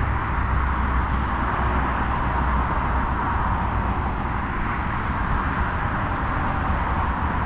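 Steady outdoor background roar with a low rumble underneath; no single event stands out.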